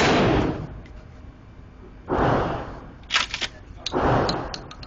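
12-gauge pump-action shotgun fired in an indoor range, each blast echoing off the walls: the tail of one shot at the start, then two more shots about two seconds in and near four seconds. Quick sharp clacks follow the shots as the pump is worked.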